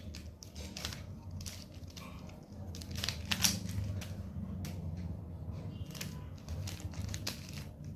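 Plastic Rubik's Cube being twisted by hand, its layers turning with a string of irregular clicks and rattles, the loudest about three and a half seconds in.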